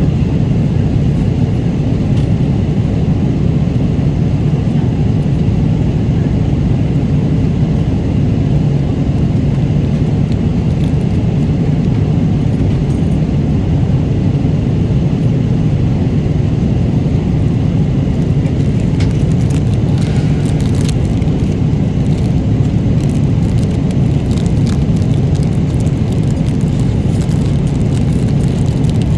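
Steady low rumble of an airliner cabin in flight: engine and airflow noise, unchanging throughout. A few faint light clicks sound in the last third.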